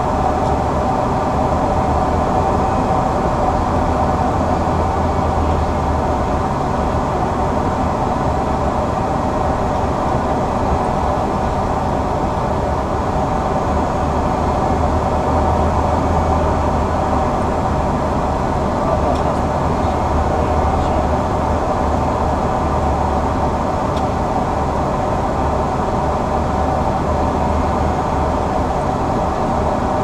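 Steady cockpit noise of an Embraer 175 descending on approach: an even rush of airflow over the flight deck with a constant hum underneath.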